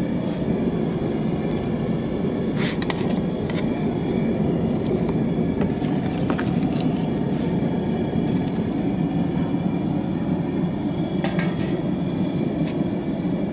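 Large metal tray of Coca-Cola hot pot broth on the boil over its fire: a steady low rumble, with a couple of light clicks of the ladle against the metal tray.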